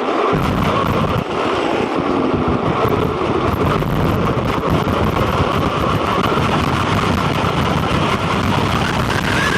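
Quanum Vandal RC buggy driving over rough ground: a steady electric motor whine over continuous tyre and chassis rattle, starting about a third of a second in.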